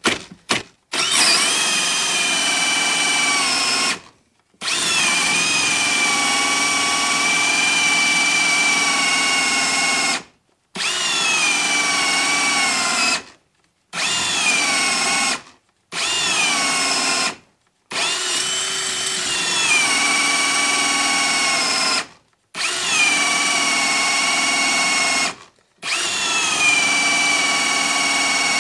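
Ryobi One+ 18V brushless hammer drill, in drill mode on a 4 Ah battery, driving a hole saw into a wooden board: the motor whines in spells of a few seconds, its pitch sagging as the saw bites, with short stops between spells.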